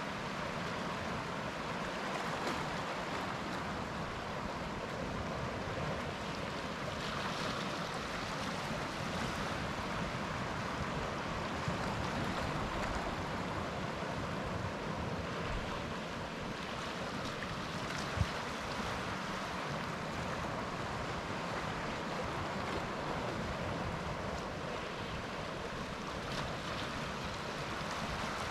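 Sea waves breaking and washing onto the beach in a steady surf roar that swells and eases gently. A single brief sharp click sounds about two-thirds of the way through.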